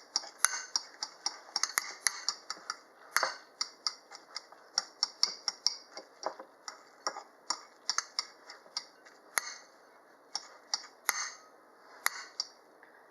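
Fork clicking and scraping against a bowl while scrambling cooked eggs: quick, irregular taps, a few a second, thinning out near the end.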